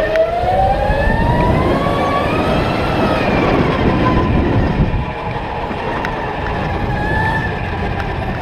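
Sodi RTX electric kart's motor whining as it moves off at low speed, the whine rising in pitch for about three seconds and then falling as it slows, with a second brief rise and fall near the end, over a steady low rumble. A single knock right at the start.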